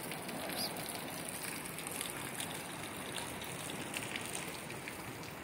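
Heavy rain pouring steadily, an even dense hiss of falling water with scattered sharper drop sounds.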